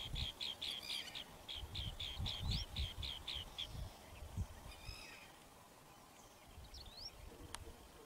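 Red-wattled lapwing calling: a fast run of sharp, high notes, about five a second, that stops about three and a half seconds in, followed by a few single high calls.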